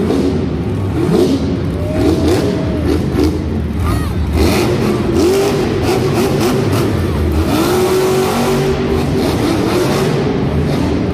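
Monster truck's supercharged V8 revving hard, its pitch rising and falling repeatedly as the truck is driven through a freestyle run.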